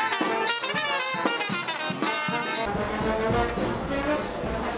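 Street brass band of trumpet, trombone, tuba and drum playing jazz. About two and a half seconds in it cuts off abruptly, giving way to a steady low rumble of background noise.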